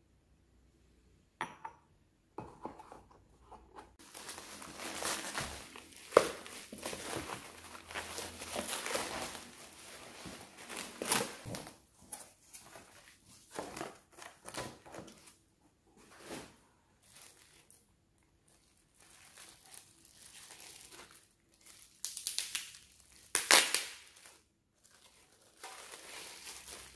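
Cardboard packaging being torn open and handled, then plastic wrapping crinkling as it is pulled off. Irregular rustling and tearing with several sharp, louder crackles.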